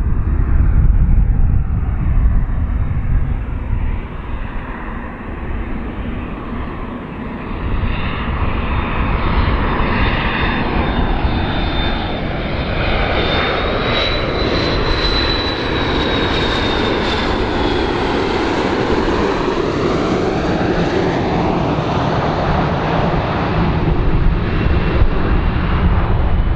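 A fixed-wing aircraft's engines running loud and steady as it flies past, with a high whine that rises and falls about halfway through.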